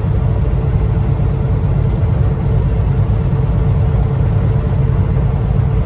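Semi truck cab noise while cruising: the diesel engine's steady low rumble and tyre and road noise, with a faint constant tone above the rumble.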